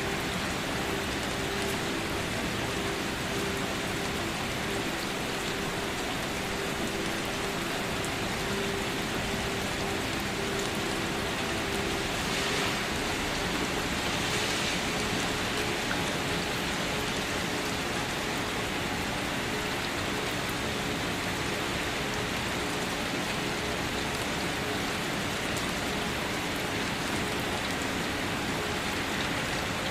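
Steady rain falling on surfaces: an even, unbroken hiss with patter, plus faint steady low tones underneath.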